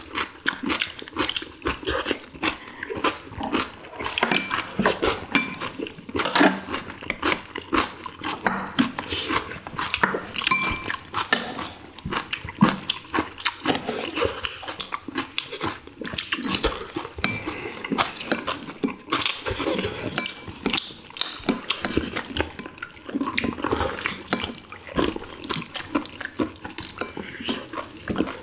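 Close-miked eating sounds of people eating boiled ginseng chicken: a dense run of wet chewing and lip smacks, tender chicken being pulled apart by hand, and clinks of chopsticks and spoons against ceramic bowls.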